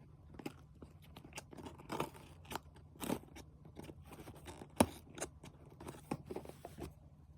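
Irregular clicks, scrapes and crinkles of an iPhone 16 box and its packaging being handled and opened by hand, with one sharp knock a little past the middle.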